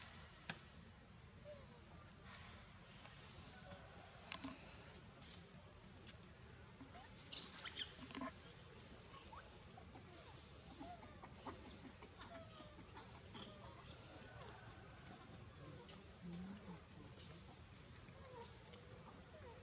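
Steady high-pitched insect drone in two pitches, with scattered faint short calls and a brief louder flurry of sound about seven to eight seconds in.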